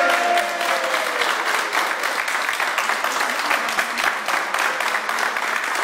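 A small group of people clapping their hands in steady applause.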